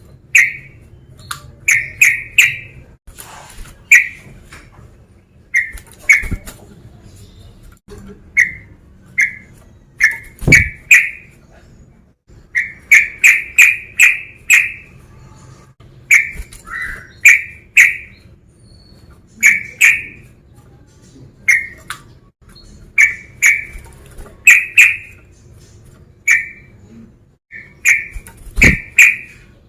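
Sooty-headed bulbul (trucukan) calling repeatedly: short, sharp notes, often in quick runs of two to four, repeated every second or two. A couple of low thumps sound under the calls.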